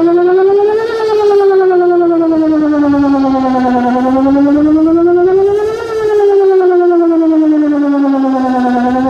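Outdoor tornado warning siren sounding a test wail: one loud tone that rises and falls in pitch, going round about every five seconds, at its highest about a second in and again around six seconds in.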